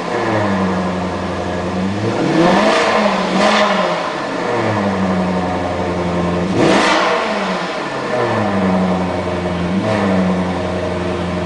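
Maserati GranTurismo's V8 idling and blipped four times, each rev rising and falling back to idle, the third one, about two-thirds through, the highest and loudest.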